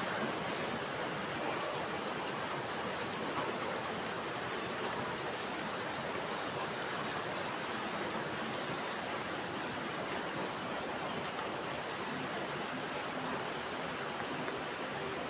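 Steady rain falling, an even unbroken hiss with a few faint drop ticks.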